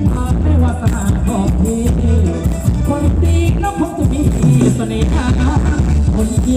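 Thai ramwong dance music from a live band played over a PA, with a singer over a steady bass beat.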